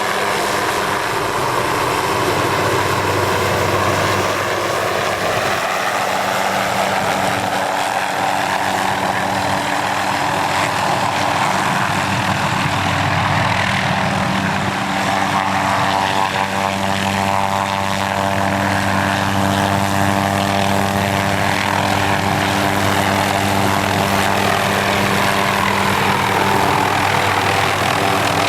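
Aircraft engine and propeller droning steadily overhead, its tone swirling slowly up and down as the aircraft moves through the sky.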